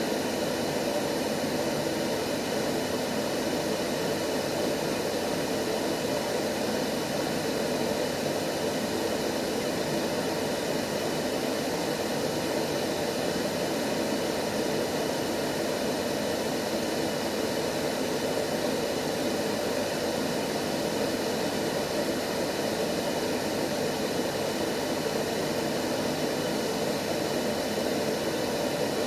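Steady sleep-aid noise for babies: an even, unchanging rushing hiss.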